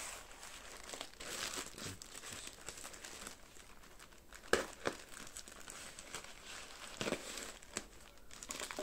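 Grey plastic mailer wrapping on a parcel rustling as hands pull and handle it to open it, with two short, sharper crackles about four and a half and seven seconds in.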